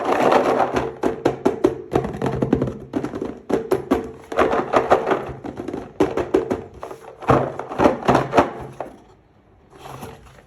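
Toy packaging and figures being handled close up: a quick, irregular run of taps, clicks and crinkles, with soft background music underneath. There is a short lull about nine seconds in.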